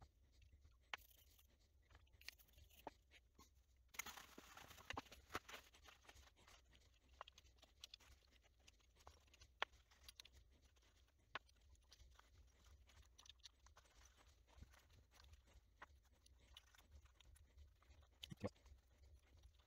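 Faint clicks of plastic Commodore 64 keycaps being handled and set down one by one, with a brief rustling about four seconds in.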